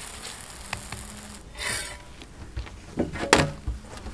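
A metal spatula scrapes across a griddle under a parotta, one short scrape about halfway through, followed by a few sharp clicks and knocks of the spatula against the griddle.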